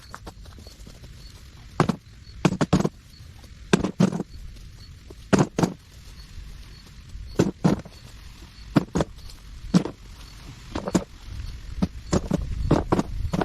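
Hard objects knocking together in a series of sharp knocks and clacks, often two in quick succession, coming irregularly about every one to two seconds over a low rumble.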